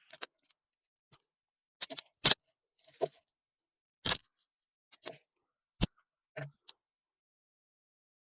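A handful of short, sharp clicks and brief rustles, spaced about a second apart, with silence between them.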